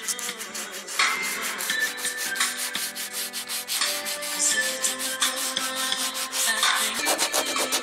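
Sanding on car bodywork, with background music playing over it.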